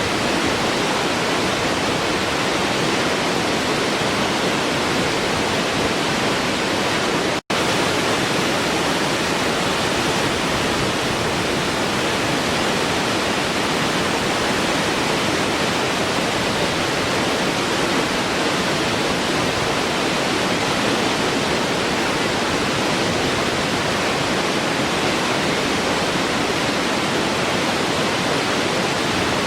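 Waterfall rushing in a steady, even roar of falling water, cutting out for an instant about seven and a half seconds in.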